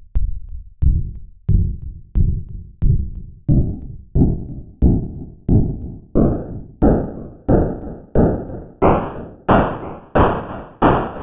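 DIN Is Noise software synthesizer with its voice set to noise, sounding a repeated note as evenly spaced, decaying bursts of filtered noise, about one and a half per second. The band of noise steps up about an octave every few bursts as the key is raised, from a low rumble to a bright hiss.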